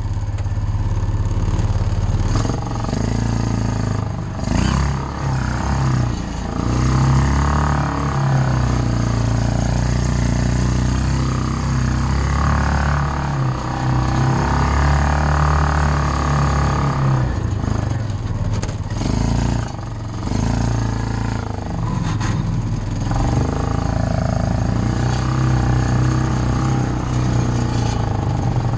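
Yamaha Rhino 660 side-by-side's single-cylinder engine, fitted with an open cone air filter, running as it is driven along a muddy trail, its pitch stepping up and down as the throttle changes. A few knocks come from bumps partway through.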